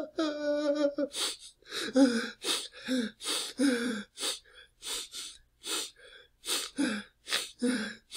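Adult man crying: a short whimper, then a rapid run of short, gasping sobs, about two to three a second.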